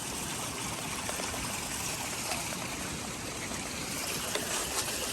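Mountain creek rushing steadily over rocks: a constant, even wash of water.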